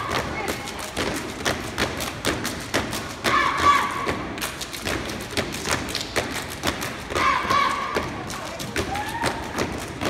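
Step team stomping and clapping in a fast, rhythmic pattern on a stage floor.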